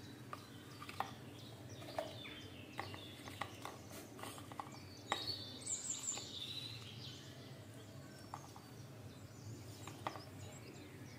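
Faint light taps and clicks of papads being set down and arranged on a plastic divided plate, with a spoon clinking against a steel bowl near the end. Faint high chirps sound about five to six seconds in.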